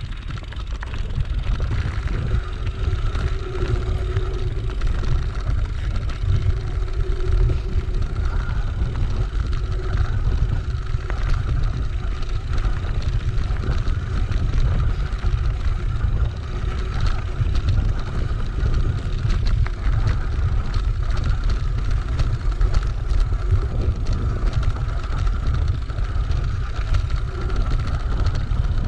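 Mountain bike rolling over a gravel and stone double-track, tyres crackling on the loose stones, with heavy wind buffeting on the helmet camera's microphone and a steady high whine running underneath.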